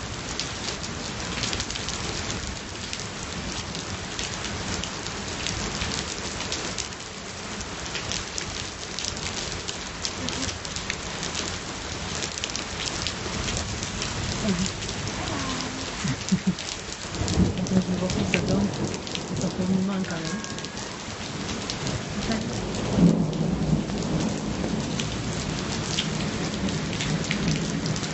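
Steady rain falling, with many close drop hits on a nearby surface. Thunder rumbles low under it, loudest about seventeen seconds in and again about twenty-three seconds in.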